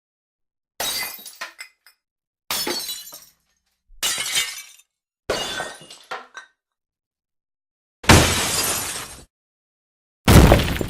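A run of separate glass-breaking sound effects: six sudden crashes with short silences between. Each one is a sharp shatter trailing off into tinkling fragments, and the fifth is a longer, denser crash of about a second.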